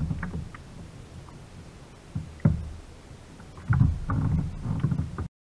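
Water splashing and knocking at a kayak's side as a rainbow trout is landed in a net, over a low rumble: one burst about two and a half seconds in, then a run of splashes near the end, before the sound cuts off suddenly.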